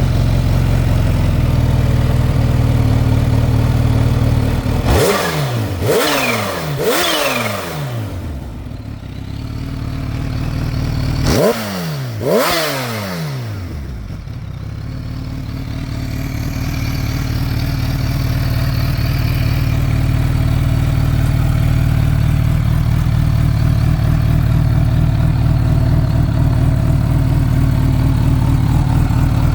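Kawasaki Ninja H2's supercharged inline-four, warmed up and on its stock exhaust, idling steadily. It is blipped three times in quick succession about five seconds in and twice more about eleven seconds in, each rev dropping straight back to idle, then it settles into an even idle.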